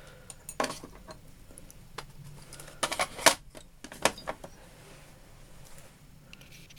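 Steel punches clinking and rattling against each other as they are handled in a metal toolbox drawer: a series of short, sharp metallic clicks, busiest around the middle.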